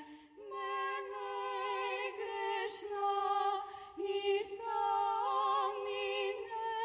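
Background music of singing: held, slowly changing sung notes with a marked vibrato.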